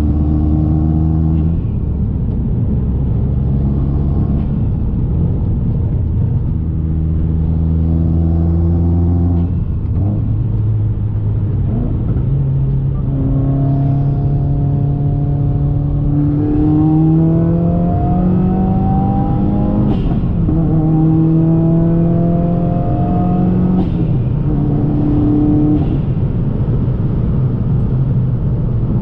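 Turbocharged Subaru WRX flat-four engine and Tomei exhaust under way, the engine note climbing with revs and then stepping down or up as gears change. Two short sharp sounds come between shifts about two-thirds of the way through.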